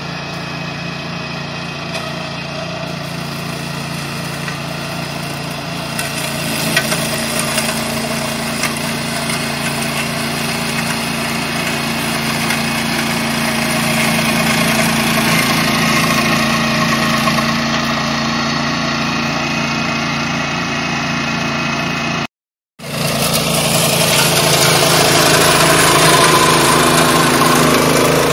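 MC328 walk-behind two-wheel tractor's petrol engine running steadily under load, driving its BladeRunner 60 mower deck through tall grass and weeds. It grows gradually louder, and it cuts out for a moment about 22 seconds in, then comes back louder.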